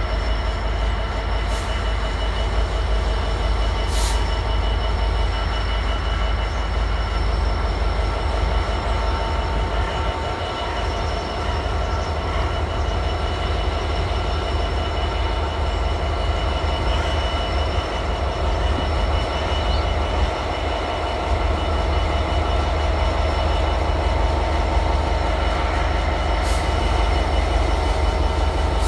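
Class 66 diesel-electric locomotive's two-stroke V12 diesel engine running under power with a steady deep rumble as it draws a container freight train slowly away. Steady high-pitched tones sit over the rumble.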